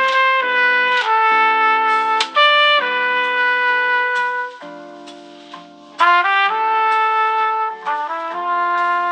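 Samsung Galaxy A32 (One UI 4) ringtone playing: a melody of held notes over chords, changing every half second or so. It drops to a quieter passage about halfway through, then comes back in at full level.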